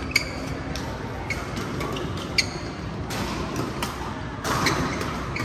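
Badminton rally: rackets striking the shuttlecock in sharp cracks about once a second, the loudest about two seconds in, with the echo of a large sports hall.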